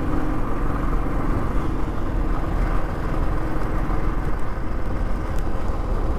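Motorcycle engine running steadily at riding speed, with a constant rumble of wind and road noise over the microphone.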